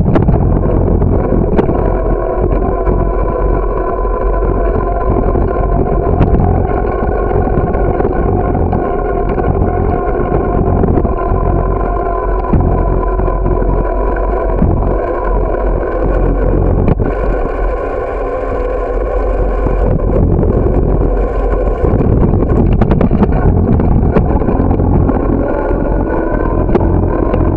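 Steady rumble of wind and road vibration on a bicycle-mounted camera during a ride, with a steady droning hum over it and a few seconds of hiss past the middle.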